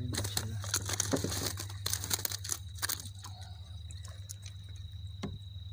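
Crackling, rustling handling of a woven straw basket as a caught fish is dropped in among the others, busiest for the first three seconds and then sparse. Under it a steady high chirring of insects and a low steady hum.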